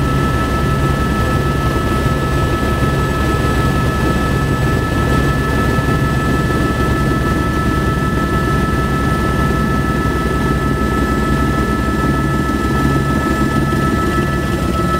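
Helicopter in flight heard from inside its cabin: a steady, loud low rumble of rotor and engine, with a constant high-pitched whine over it.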